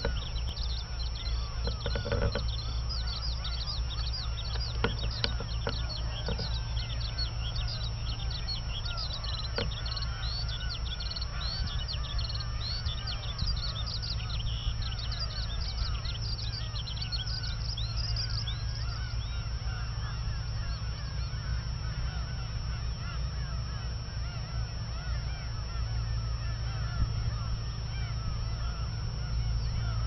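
Skylark singing in the background: a continuous, fast, high warbling song that grows fainter about two-thirds of the way through, over a steady low hum.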